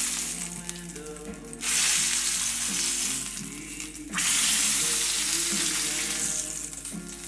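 A rack of lamb sizzling in hot rendered fat in a stainless steel frying pan as its ends are pressed down to sear. The sizzle swells loudly twice, about a second and a half in and again around four seconds in, easing off each time.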